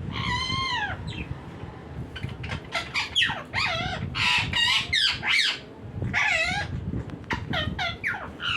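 Green parrot calling: a run of high-pitched calls, many sliding down in pitch, in quick clusters with short pauses between them.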